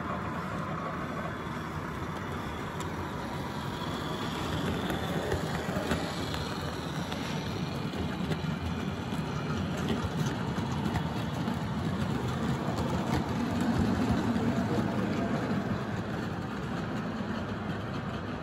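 0 gauge model diesel locomotives and goods wagons running along the layout's track: a steady rumble that swells a little past the middle.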